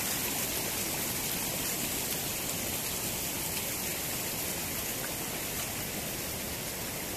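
River water rushing over rocks and small rapids, a steady, even rush.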